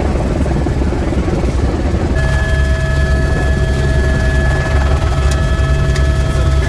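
A-Star helicopter in flight heard from inside its cabin: a loud, steady low drone of the rotor and engine. About two seconds in, a steady whine of several tones joins it.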